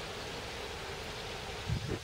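Steady outdoor wind noise, with a brief low buffet of wind on the microphone near the end.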